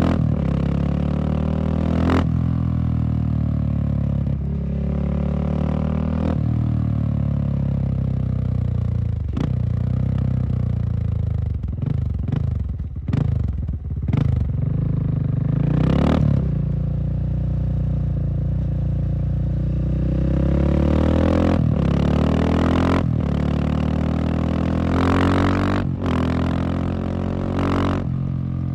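Husqvarna SM610 supermoto's single-cylinder four-stroke engine running under way, the revs rising and falling repeatedly, with several short sharp noises through it.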